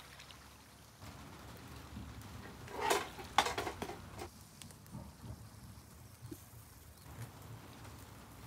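Yakitori skewers of chicken gizzard grilling over charcoal on a shichirin: a brief burst of sizzling and crackling about three seconds in, with a couple of sharp pops, then scattered small pops. A low steady rumble runs underneath.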